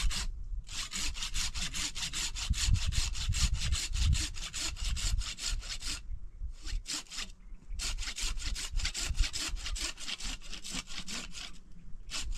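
Hand saw cutting wood in quick, even strokes, about four a second. It stops briefly about six seconds in, resumes, and stops again near the end.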